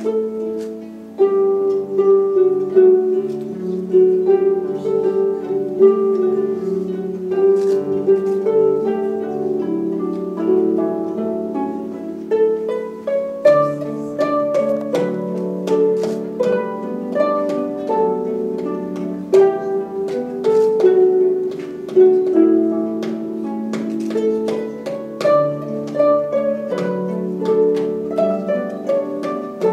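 Several harps playing together, a steady stream of plucked notes ringing over lower sustained notes.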